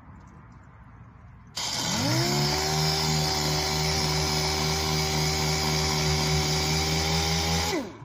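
Random orbital sander starting up with a rising whine and a loud hiss about a second and a half in, running at steady speed while sanding filler primer on a car body panel, then spinning down just before the end.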